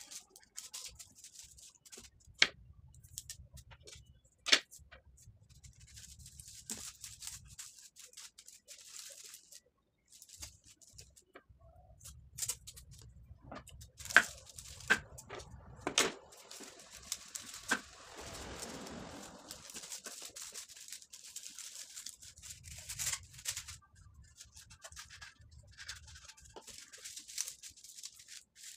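Hands handling and crinkling plastic and foil wrapping on a tabletop, with several sharp clicks and taps.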